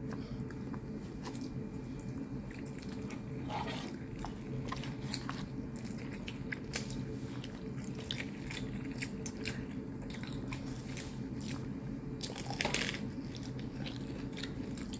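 Close-up chewing and biting of spicy noodles and pan-fried dumplings: a run of short wet mouth clicks, louder about three and a half seconds in and loudest about twelve and a half seconds in, over a steady low hum.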